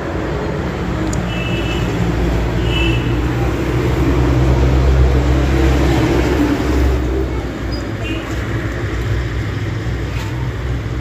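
Steady low rumble of an engine running nearby, swelling toward the middle and easing off near the end, with a few faint short high chirps.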